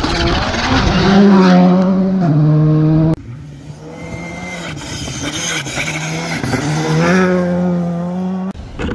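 Rally car engines at full throttle on a gravel stage, revving up and dropping in pitch at gear changes. The sound cuts off suddenly about three seconds in and switches to another car's engine, which dips and climbs again through a corner before cutting off near the end.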